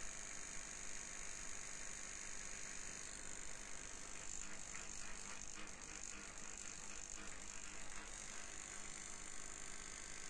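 Electromagnetic oscillator engine of a homemade robotic insect running, its coil-driven mechanism and flapping wings making a fast mechanical rattle that grows denser in the middle.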